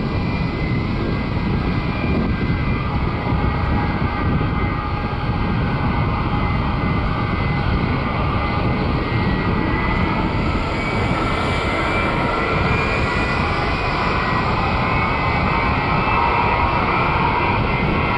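Boeing 747-8F's four GEnx-2B turbofan jet engines running loud and steady, with an engine whine that strengthens and rises slightly from about halfway through.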